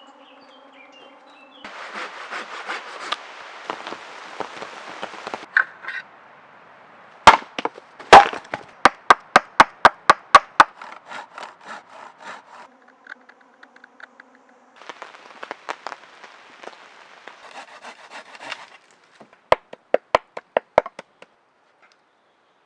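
Hand work on wood with blade tools: stretches of scraping, shaving cuts alternate with runs of sharp knocks and cracks as the wood is struck and split.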